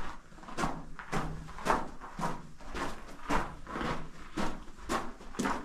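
Footsteps crunching on the gravelly rock floor of a narrow mine tunnel, a steady walking pace of about two steps a second.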